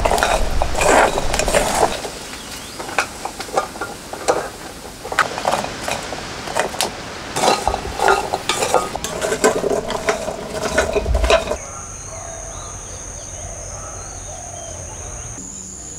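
Jackfruit seeds rattling and scraping as they are stirred with a wooden spoon in a metal pan while they roast, a dense run of clicks and clinks. About three-quarters of the way through the stirring stops, leaving a steady high insect drone with bird chirps.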